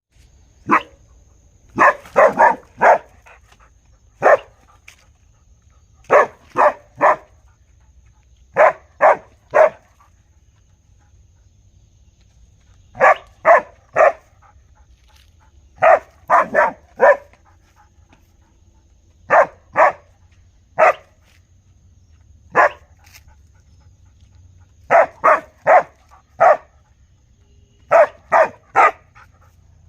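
A dog barking in sharp, short barks, mostly in quick runs of three or four with pauses of one to three seconds between runs.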